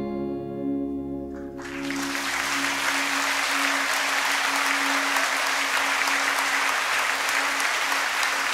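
The band's last chord rings and fades away, and about two seconds in an audience breaks into steady applause.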